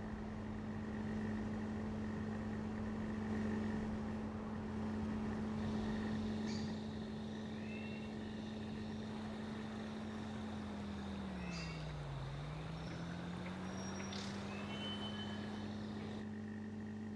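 Steady machine hum, like a motor or engine running, whose pitch sags and then recovers about twelve seconds in.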